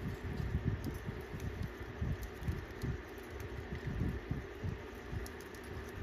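Budgies pecking and cracking seed at a plastic feed dish: scattered faint clicks over an irregular low thumping rumble.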